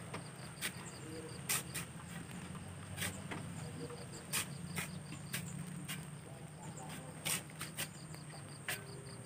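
Steel shovels scraping into wet sand and throwing it, in sharp, irregular strokes about once a second. Insects trill steadily behind them.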